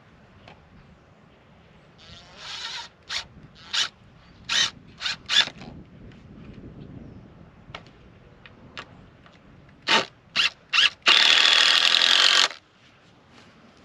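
Cordless drill driving exterior screws into a 2x4 brace: a string of short bursts, then one longer run of about a second and a half near the end.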